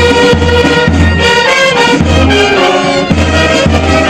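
Brass band music: horns playing sustained notes over a steady low drum beat.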